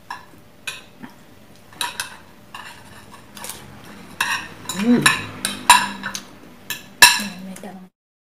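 Metal forks and spoons clinking and scraping on ceramic plates at a meal: irregular sharp clinks with a short ringing tone, the loudest about seven seconds in. The sound then cuts off suddenly near the end.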